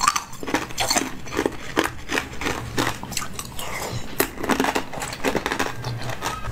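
Mouth sounds of sipping a jelly drink through a straw and chewing: an irregular, quick run of wet clicks and crunches.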